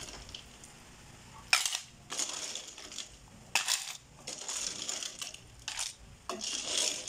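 Cooked shellfish rattling and clattering as a plastic ladle scoops them from a stainless steel pot and tips them into a ceramic bowl, in four short scoops about two seconds apart.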